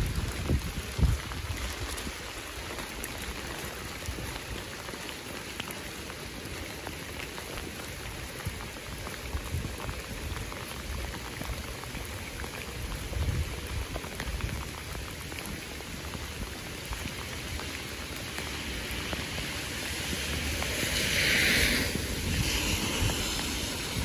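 Steady rain falling on wet pavement and fallen leaves, an even hiss, with a louder hiss swelling and fading near the end.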